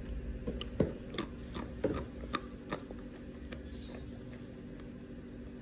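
Almonds being chewed with crisp, dry crunching: about six sharp cracks in the first three seconds, then softer crunching.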